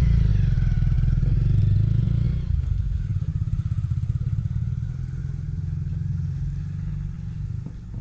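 Motorcycle engine idling close by, a fast low putter, loud at first and then dropping in level about two and a half seconds in and fading.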